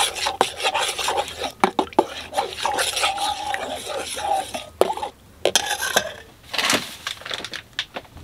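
A metal spoon stirring water and yeast in a stainless steel bowl, clinking and scraping against the sides. Near the end, a bag of flour rustles as it is handled.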